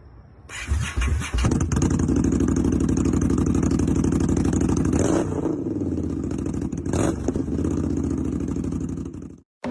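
Harley-Davidson motorcycle's V-twin engine firing up and running, blipped a couple of times, then stopping abruptly near the end.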